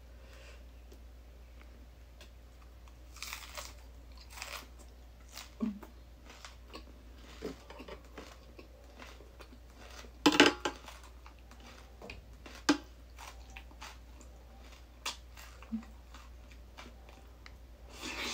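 Close-up chewing and crunching of crisp raw vegetables, cucumber salad and fresh greens, as a series of short sharp crunches with a louder burst about ten seconds in.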